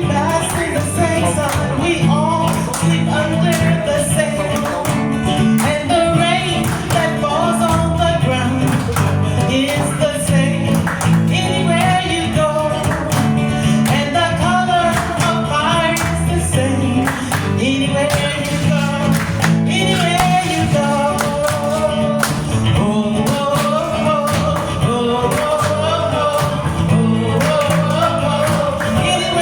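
Band music with a singer: a melodic voice over guitar, bass and a steady drum beat.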